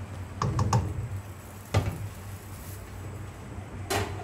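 Sharp wooden knocks and clicks of a wooden spoon tapping against a stainless-steel stockpot: three quick ones about half a second in, a single one a little later and two more near the end.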